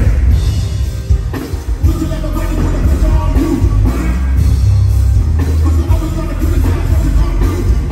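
Loud music played through a stage sound system during a concert sound check, with a heavy, booming bass line.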